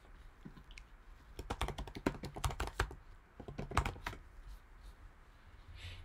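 Typing on a computer keyboard: two quick runs of keystrokes, the first about a second and a half long, the second shorter, with a brief pause between.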